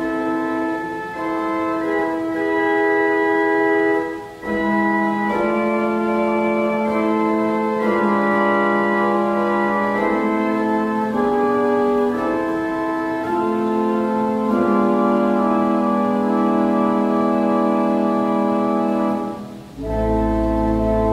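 Pipe organ playing slow, sustained chords, pausing briefly between phrases about four seconds in and again near the end. A deep bass note comes in with the last chord.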